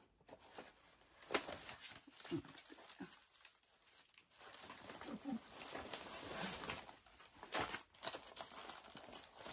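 Faint rustling and crinkling of plastic and paper packaging being handled, in short scattered bursts, with a few soft brief voice-like sounds.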